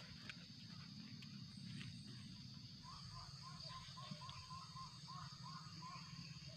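Faint, steady high-pitched insect drone. About three seconds in, a run of short chirping call notes comes at roughly four a second for about three seconds.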